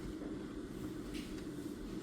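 Steady low hum of background room noise, with a few faint light taps, the clearest a little over a second in.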